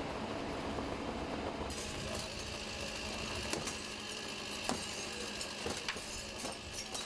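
Sounds of firefighters working at a fire-damaged building: a low rumble at first, then scattered sharp knocks and clinks, some like glass, over a steady hiss.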